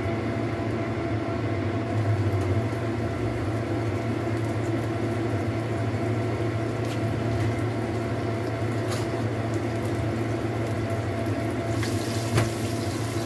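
Sliced shallots, garlic and chillies frying in a little oil in a wok: a soft sizzle over a steady hum, with a few light knocks of the wooden spatula. The sizzle grows brighter near the end as the aromatics turn fragrant.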